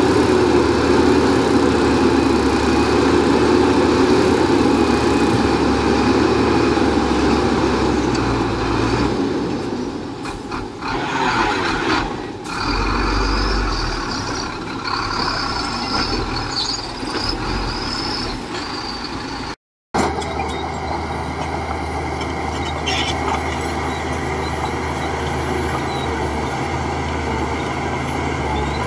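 Heavy diesel construction machinery running steadily under load, with a high squeal partway through. The sound cuts out for an instant shortly before the end.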